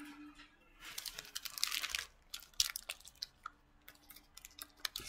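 Trading-card pack wrapper being torn open and crinkled, a dense crackle lasting about a second from about a second in, followed by scattered light clicks and rustles of the cards being handled.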